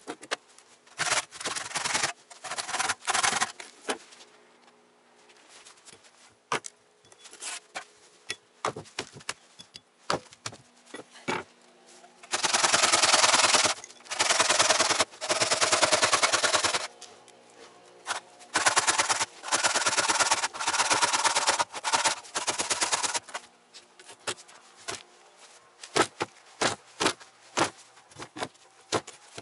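Hand saw cutting through a frozen cow's head, in runs of quick rasping strokes a few seconds long. Near the end come single sharp axe chops, about one or two a second.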